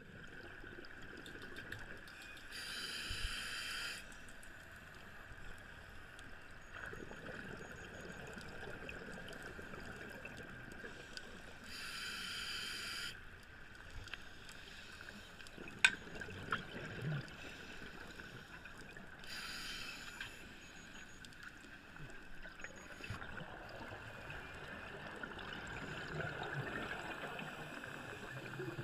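Scuba diver's regulator heard underwater: exhaled bubbles rush out for about a second roughly every eight seconds over a steady underwater hum. A single sharp click sounds about halfway through.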